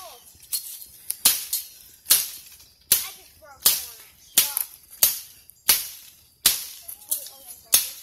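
Machete hacking through brush and branches: about ten sharp chops, one roughly every three-quarters of a second, each a quick swish and whack.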